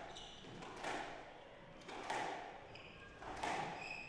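Squash ball being struck by rackets and slapping the court walls, three echoing thwacks a little over a second apart, with short high squeaks of shoes on the wooden floor in the second half.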